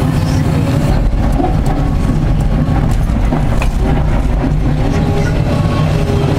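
Liebherr R 944 C excavator's diesel engine running steadily and loudly, heard from inside the cab, while the bucket digs into a pile of broken rock.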